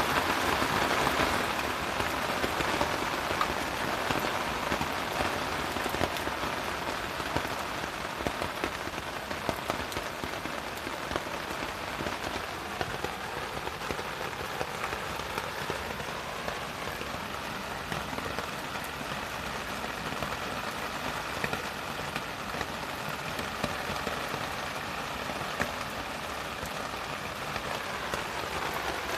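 Steady typhoon rain falling, with many individual drop hits, a little heavier in the first few seconds.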